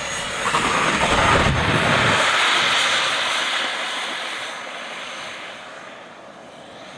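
Radio-controlled model jet making a pass: a rushing jet noise with a high steady whine swells to its loudest a second or two in, then fades as the plane flies away.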